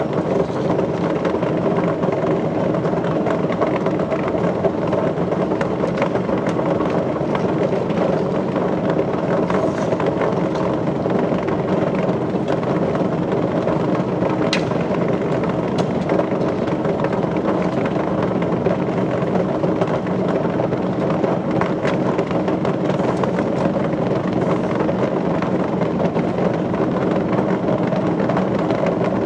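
Machinery running steadily, a constant mechanical hum with a few faint clicks.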